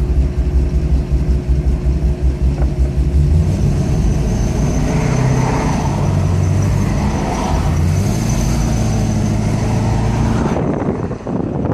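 A 2002 Corvette C5 Z06's LS6 V8 running while the car is driven, with a thin high-pitched squeal over the engine and road noise from a few seconds in until near the end. The chirp appears only while the car is moving, and the owner suspects a loose belt.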